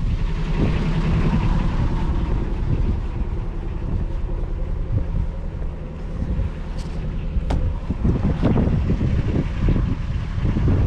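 An engine running steadily, with a sharp click about seven and a half seconds in.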